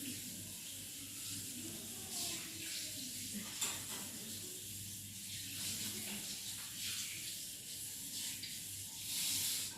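Hands being washed under a running tap at a sink: a steady rush of water with splashing, growing louder near the end.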